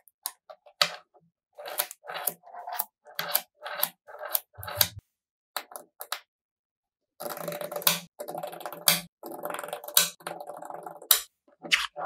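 Small magnetic metal balls clicking sharply as they snap together one after another. A little past halfway there are a few seconds of continuous clattering, as a sheet of the balls is lifted and folded up, and then single clicks again.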